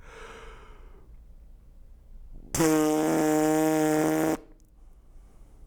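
A trombonist's lips buzzing without the mouthpiece: a quick breath in, then a loud, steady, low buzz held at one pitch for nearly two seconds, attacked with the tongue and cut off cleanly.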